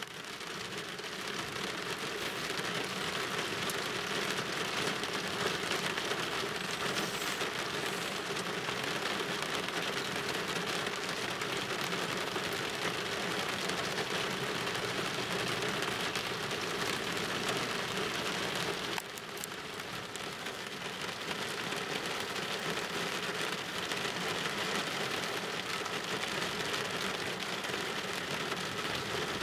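Steady rain falling on a car, heard from inside the car, with a brief dip in level about two-thirds of the way through.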